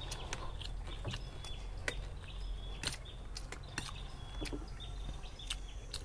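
Spoons clicking and scraping on plates as people eat, in irregular single clicks, over faint bird chirps and a low steady hum.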